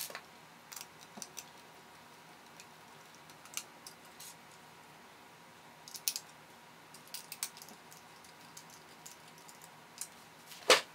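Scattered light clicks and taps of 3D-printed plastic parts and small machine screws being handled and screwed in by hand, with a louder knock near the end.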